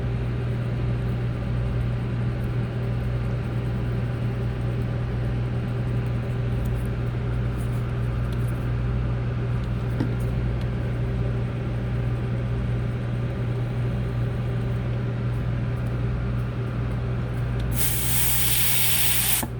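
Steady low hum throughout, then near the end a loud spray hiss lasting about a second and a half, the kind an aerosol or compressed-air can makes when cleaning a freshly soldered connection.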